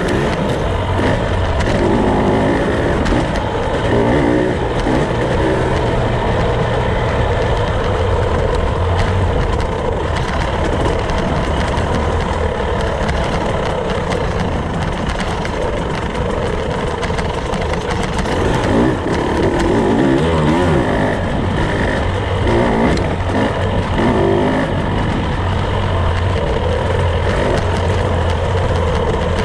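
A 2021 KTM 300 TPI's single-cylinder two-stroke engine runs continuously while being ridden, its pitch rising and falling as the throttle is opened and closed.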